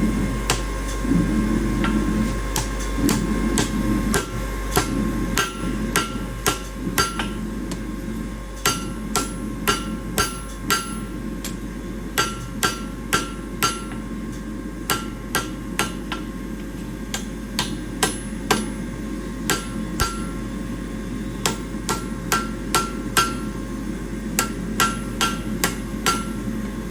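Hammer blows on steel bars being straightened: an irregular run of sharp metal strikes, about one to two a second, each with a brief ring.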